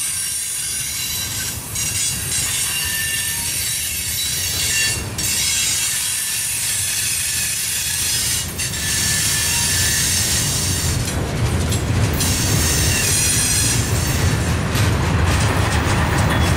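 Freight train's gondola cars rolling past with a low rumble, their wheels squealing in several steady high tones. Near the end the wheels start clacking rhythmically over the rail joints.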